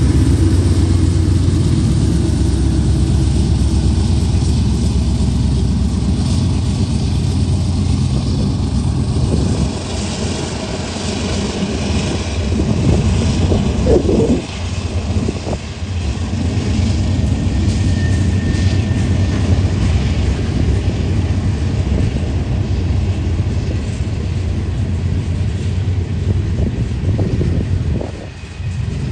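Union Pacific freight train passing: the diesel locomotives' engines running as they go by, giving way from about ten seconds in to the rumble and clatter of tank cars' wheels rolling over the rails.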